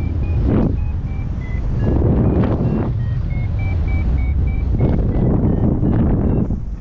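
Wind buffeting the camera microphone in flight, loud and gusting in surges, with an XC Tracer Maxx variometer beeping over it: short beeps a few times a second whose pitch wanders up and down. Beeping like this is the climb tone, the sign that the paraglider is rising in lift.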